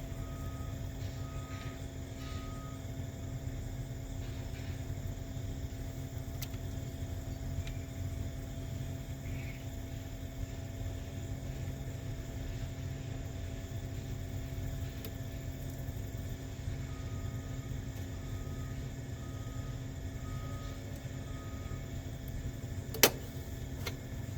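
Steady low rumble throughout, with a faint run of short evenly spaced beeps near the start and again later, and a single sharp click about a second before the end.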